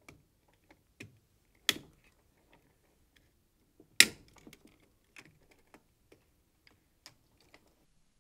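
Plastic retaining clips of a washing machine display PCB housing clicking as a flat-blade screwdriver levers them back and the circuit board is prised free. Two sharp snaps stand out among lighter ticks, the loudest about four seconds in.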